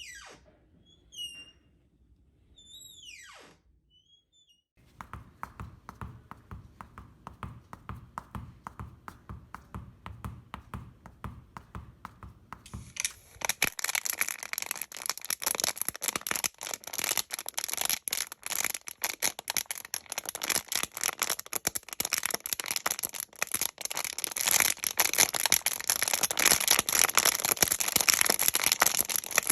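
Foley sound effects: a few quick falling whistles, then a dense fine crackling that about thirteen seconds in turns into a loud hiss full of crackles, growing louder toward the end.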